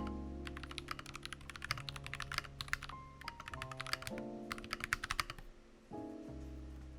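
Fast typing on an Akko Mod001 mechanical keyboard with lubed Akko CS Radiant Red linear switches: a quick run of key clacks that stops about five seconds in. Background music plays underneath.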